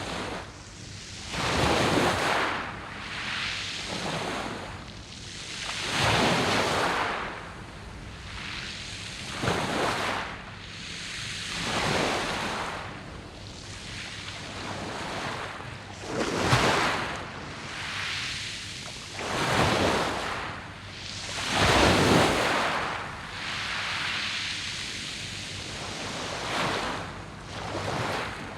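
Sea waves breaking on a beach of smooth, rounded pebbles, each wave coming in as a loud rush every two to four seconds, then easing into a hissing wash over the stones.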